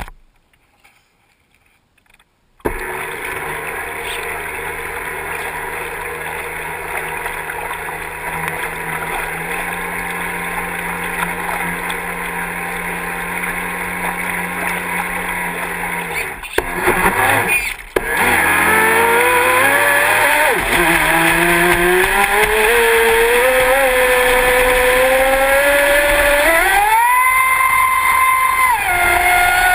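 Traxxas Spartan RC boat's brushless electric motor running on the water, with water rushing along the hull. From about halfway through, the motor's whine climbs in pitch and gets louder as the boat speeds up; the first couple of seconds are near silent.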